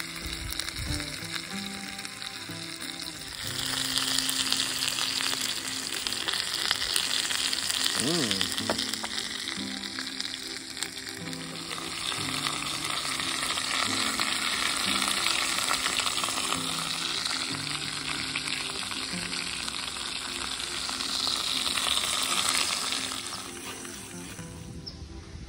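Steak sizzling as it fries in a pan on a camp stove. The sizzle starts loud about three seconds in and fades near the end, with soft background music underneath.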